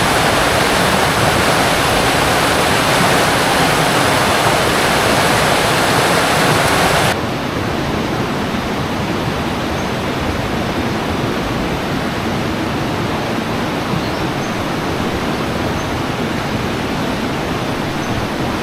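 River flowing: a steady rush of water. About seven seconds in it changes abruptly to a duller, quieter rush.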